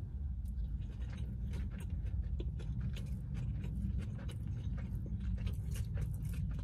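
Close-up chewing of a chicken salad sandwich: many small mouth clicks and smacks over a low steady hum inside the car.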